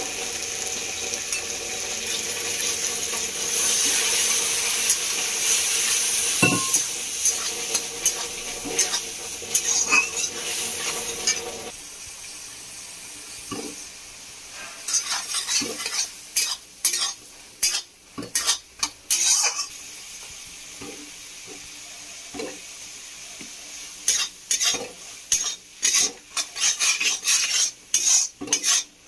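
Dried peas and spices sizzling in hot oil in a metal kadhai, a steady hiss for the first twelve seconds or so. After that a flat metal spatula stirs and scrapes against the pan in quick, irregular clinks and scrapes.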